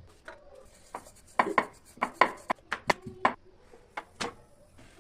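Food being chopped with a knife on a cutting board: about a dozen sharp, quick strikes, bunched in a fast run through the middle, with a couple more near the end.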